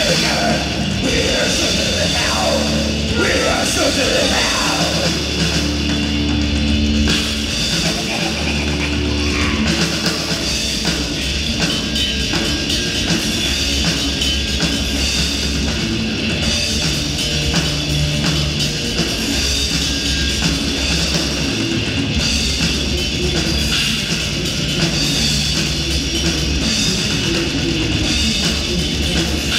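Heavy metal band playing live: distorted electric guitars, bass and a pounding drum kit. It is a room recording rather than a mixing-desk feed.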